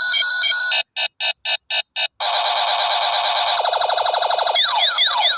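Electronic sound effects from a battery-powered toy pistol. It starts with steady beeping tones, then gives a run of short pulsed blips at about four a second. Next comes a long warbling electronic buzz, and near the end a few quick falling zaps.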